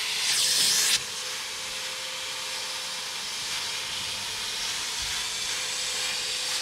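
Carpet extractor's wide nozzle drawn over car floor carpet, sucking up the dirt and water with a steady hiss and a faint steady tone under it; the hiss is louder for about the first second.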